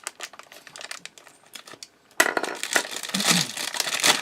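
Crinkling and crunching close to the microphone: a crunchy snack being handled and bitten. Sparse clicks at first, turning dense and louder about two seconds in.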